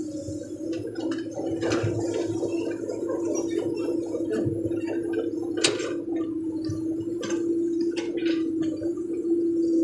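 Hydraulic excavator working: the diesel engine runs with a steady hum, over scattered metallic clanks and knocks, the sharpest about six seconds in.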